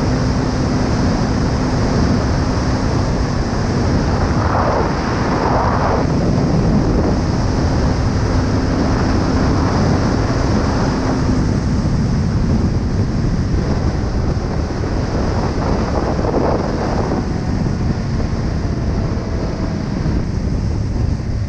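Heavy wind noise on an action camera's microphone at riding speed, over a Kawasaki ER-5's parallel-twin engine running at a steady pitch. A couple of brief rising-and-falling sweeps come through about five seconds in and again near sixteen seconds.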